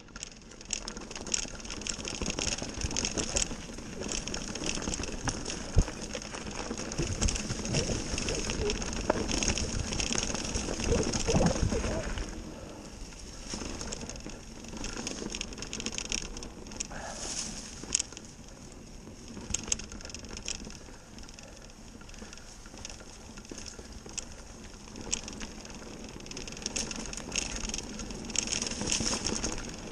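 Mountain bike rolling fast over a leaf-strewn dirt trail: tyres rushing through dry leaves and the bike rattling and knocking over bumps, with wind rumbling on the camera microphone. It is loudest for several seconds about a third of the way in, then settles lower.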